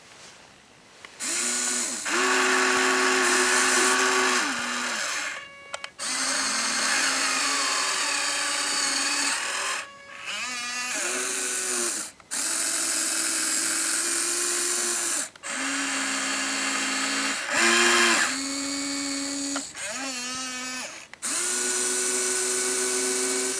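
Electric gear motors of a Huina 1593 RC excavator whining in about seven bursts of one to four seconds each, with short pauses. The pitch rises as each motor starts and drops as it stops, while the model's functions are worked one after another.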